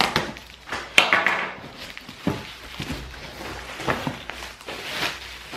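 Handling of a large cardboard box: flaps pulled open and the plastic packing inside rustled, with several sharp knocks of cardboard, the strongest about a second in.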